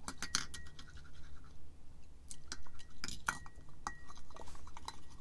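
Irregular small clicks and clinks of a glass-stone brooch knocking against a glazed ceramic dish as it is rubbed and turned in rinse water.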